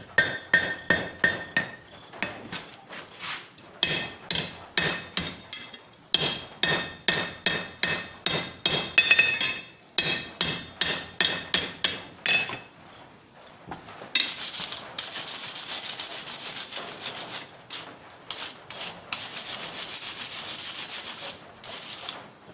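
Blacksmith's hand hammer striking hot iron on an anvil while drawing out a poker point, in runs of quick blows about three to four a second with a ringing note, broken by short pauses. For the last several seconds the hammering gives way to a steady scraping.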